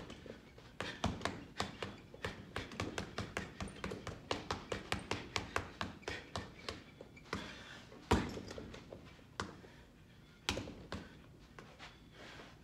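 Thinly padded leather bag mitts (Rival RB5) punching a hanging heavy bag: a fast flurry of sharp strikes, about three or four a second, then slower single heavier blows with short pauses, the hardest about eight seconds in.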